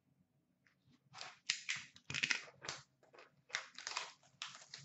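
Plastic wrapping crinkling and tearing in a run of irregular short crackles as a sealed hockey card box is opened, starting about a second in.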